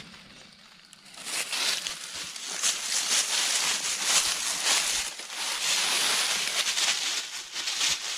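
Footsteps crunching and rustling through deep, dry fallen leaves, a busy crackle that starts about a second in and keeps going.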